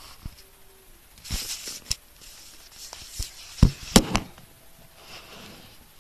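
Handling noise from the recording device as it is moved and covered: short bursts of rustling with a few sharp knocks, the loudest about three and a half to four seconds in.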